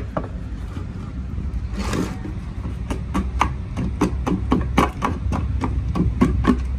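A hand tool scraping the inside walls of an emptied plastic lead-acid battery case's cell compartments, in quick repeated strokes about four a second that start about three seconds in. A low steady hum runs underneath.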